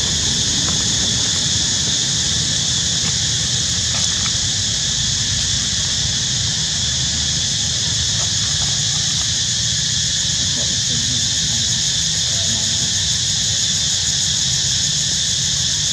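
Steady, high-pitched insect chorus over a constant low rumble.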